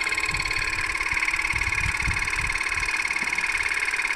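Small portable electric air compressor (tyre inflator) running steadily with a fast, even buzzing chatter, pumping up a bicycle inner tube.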